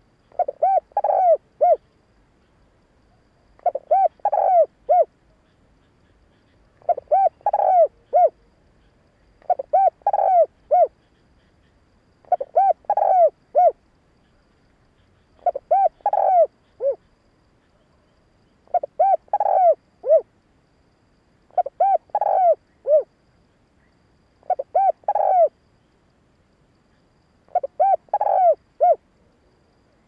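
Spotted dove cooing: short phrases of four or five coos, repeated about every three seconds.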